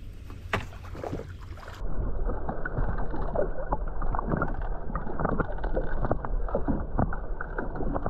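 Water heard from below the surface, from about two seconds in: a loud, muffled rushing and sloshing with many scattered knocks and clicks, and everything above a low band cut away. Before that comes a quieter stretch with a few faint clicks above water.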